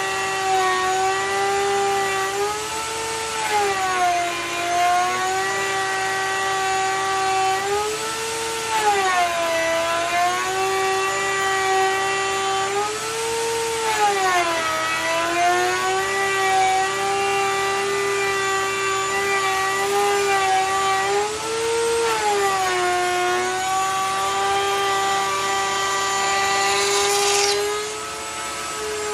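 Electric power tool running continuously, its motor whine dipping and recovering in pitch several times as it cuts wood, with a short hiss near the end.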